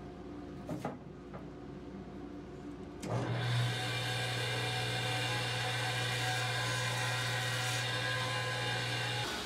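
Powermatic stationary woodworking machine switched on: about three seconds in its motor starts and runs at a steady speed with a strong low hum and a whine, over a background rush with a few clicks.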